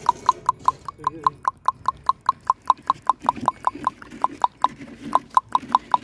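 A person clicking the tongue rapidly, about five sharp clicks a second, to catch a cow's attention.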